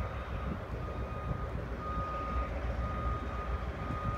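A backup alarm beeping at one steady pitch, about one long beep a second, over the low rumble of a diesel locomotive engine, the EMD GP7.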